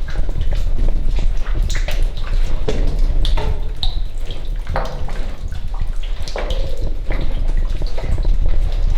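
Water dripping and gurgling: irregular plinks and plops over a steady low rumble.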